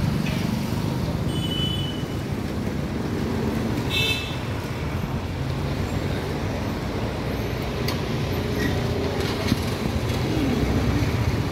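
Steady rumble of road traffic with two short vehicle horn toots, one about a second and a half in and another about four seconds in.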